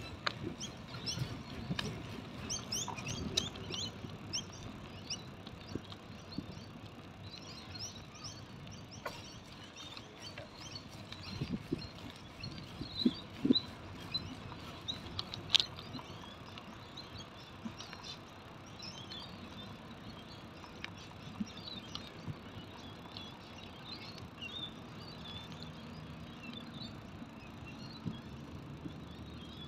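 Small birds chirping and twittering in the trees, thickest in the first few seconds, over the steady low rumble of a bicycle riding on an asphalt path. A handful of sharp knocks stand out, the loudest about halfway through.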